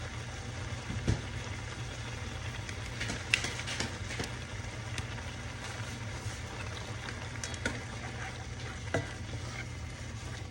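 Broccoli, onion and bell pepper taco filling sizzling in a small skillet with a steady hiss as it is stirred, with a few sharp clicks of the utensil against the pan.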